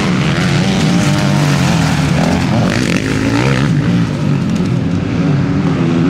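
Four-stroke Husqvarna factory motocross bike engine being ridden hard, its pitch rising and falling as the throttle opens and closes through the corners.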